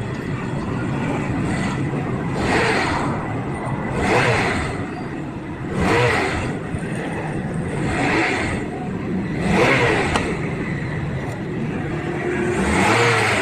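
Vehicle engine running, revved in short blips about every one and a half to two seconds.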